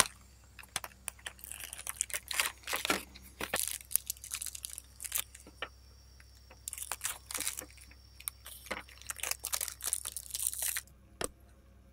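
A packet of sandwich cookies being torn open by hand, with its foil-lined wrapper crinkling and rustling in irregular bursts. The rustling stops near the end, and a single light click follows.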